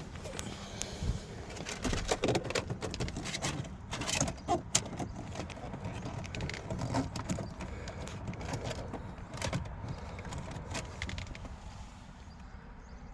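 A run of irregular clicks and knocks from hands working the fittings inside a pickup truck's cab, thickest a couple of seconds in and thinning out toward the end.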